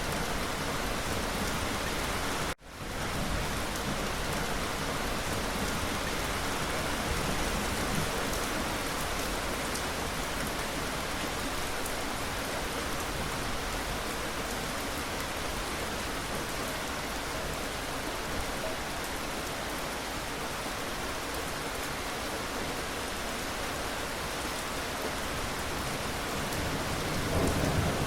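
Steady rain falling on a surface, a dense even hiss that cuts out for a split second about two and a half seconds in. A low rumble of thunder begins near the end.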